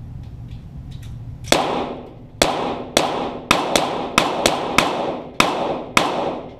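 Shots from .22 Walther GSP target pistols: about ten sharp cracks in quick, uneven succession, starting about a second and a half in, each trailing an echo off the range walls.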